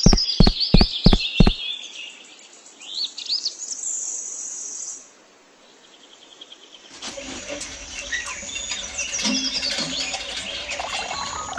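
Birds chirping and singing, with a series of about five quick knocks in the first second and a half.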